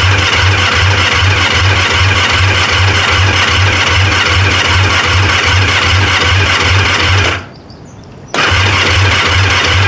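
Honda VF1000's starter motor cranking the liquid-cooled V4 engine over with the kill switch off, so it turns with an even pulsing beat but does not fire. The cranking stops for about a second near the end, then starts again.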